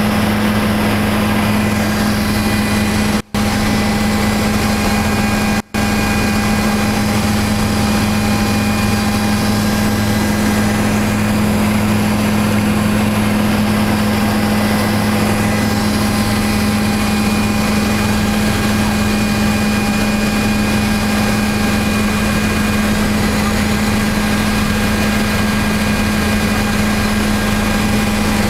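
Helicopter in flight heard from inside the cabin: the engine and rotor run as a loud, steady drone with a strong low hum. The sound cuts out for an instant twice, about three and five and a half seconds in.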